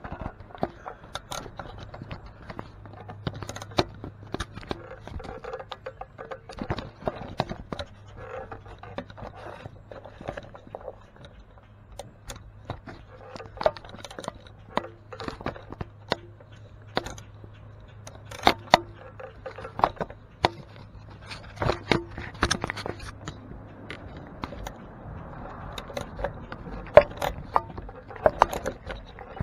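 Irregular metallic clicks and scrapes of a T27 Torx bit and driver working the screw that holds the stop-switch wire terminal on an Echo backpack blower's engine housing. A faint low hum sits underneath and stops near the end.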